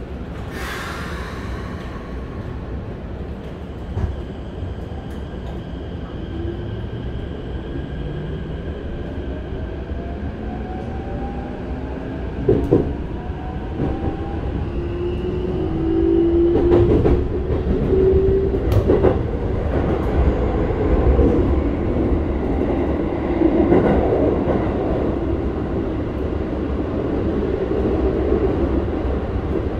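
Keikyu 1000 series train's Mitsubishi full-SiC VVVF inverter and traction motors accelerating from a standstill, heard inside the passenger car: several tones rise steadily in pitch through the first twenty seconds or so. The running noise of wheels on rail grows louder as speed builds, with a few sharp knocks over rail joints or points about twelve and seventeen to nineteen seconds in.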